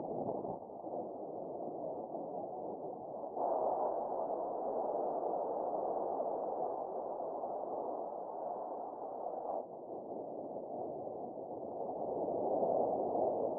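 Wind rushing over the microphone, a steady muffled rush that gets louder about three and a half seconds in and eases back near ten seconds.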